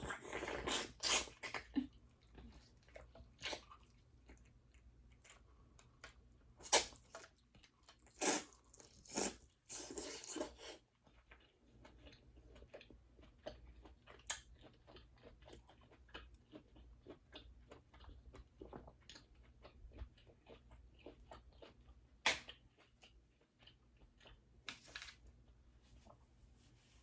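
Close-miked eating of a seafood boil of crawfish and mussels: steady chewing and crunching with many small wet clicks, and several louder noisy bursts near the start, around a quarter to a third of the way in, and again near the end.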